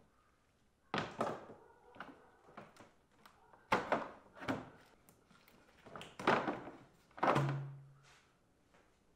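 Hollow plastic knocks and thunks as an air intake tube is loosened with a hand tool and pulled off a Chevy Suburban's engine. About half a dozen separate knocks are heard, the loudest around four and six seconds in, with a brief low tone about seven seconds in.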